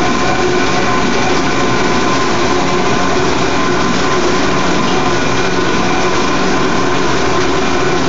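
Cryogenic helium refrigerator machinery running: a loud, steady mechanical din with several steady hums and whines layered over it.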